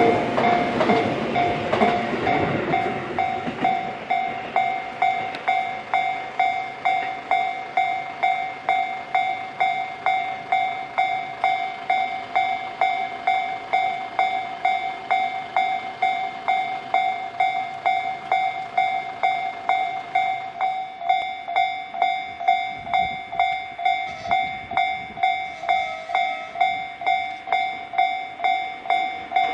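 Japanese level crossing's electronic warning bell ringing at a steady, even pace, about one and a half rings a second. For the first few seconds a passing train rumbles underneath it, and a fainter rumble of train wheels returns in the second half.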